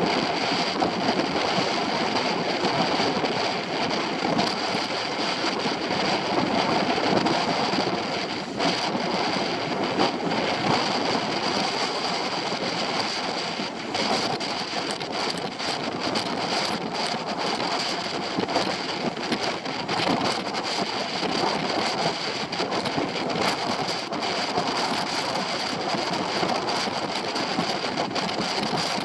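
Wind buffeting the camera microphone and water rushing and spraying past the hull of a Hobie Tiger catamaran sailing fast in strong wind, a steady, fluttering rush.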